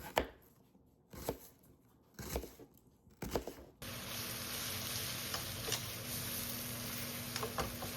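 Four short, crisp handling sounds about a second apart, like tearing, crinkling or chopping. From about four seconds in, a steady hiss switches on suddenly, with a few faint clicks in it.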